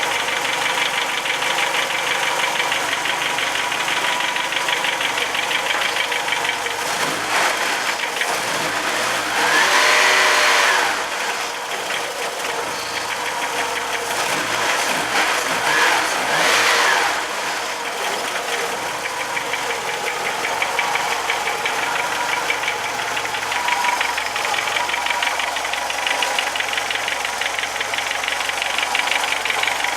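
VW Jetta Mk2's 1.8-litre four-cylinder engine running cold with a strange knock, a rapid ticking over the idle. The engine speed swells up and back down twice, about ten and sixteen seconds in.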